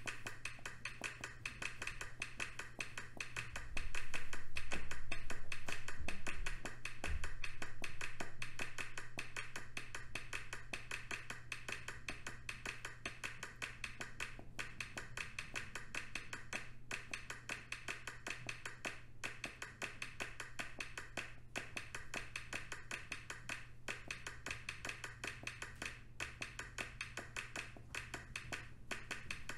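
Rapid, dense ticking clicks in an overlapping rhythm, with a steady low hum underneath.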